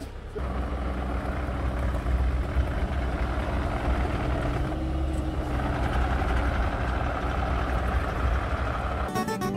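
Heavy diesel engine of work machinery running steadily with a low hum. Guitar music cuts in near the end.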